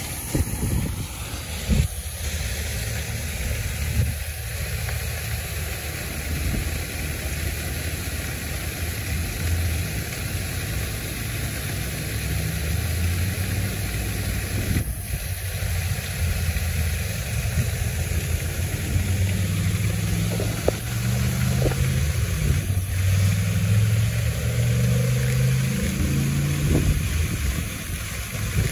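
Outdoor traffic ambience: a steady vehicle engine rumble that grows louder in the second half, with a few sharp clicks.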